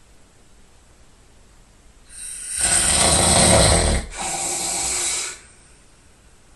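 A sleeping person snoring loudly once, about two seconds in: a rattling snore on the in-breath lasting about two seconds, then a breathy rush of air that stops a little after five seconds.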